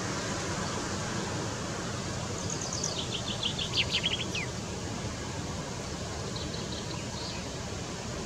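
Common chaffinch (Fringilla coelebs) singing one phrase about two seconds in: a quick series of notes stepping down in pitch and ending in a short downward flourish, followed a few seconds later by a fainter short run of notes. A steady hiss runs underneath.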